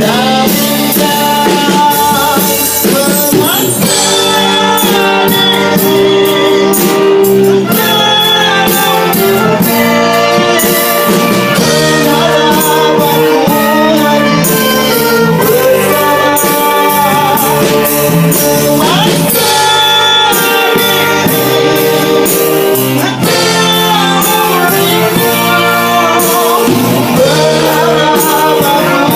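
Male vocalist singing a ballad into a microphone over a live ensemble of saxophones, trombone, cello, keyboard and hand drums, playing steadily throughout.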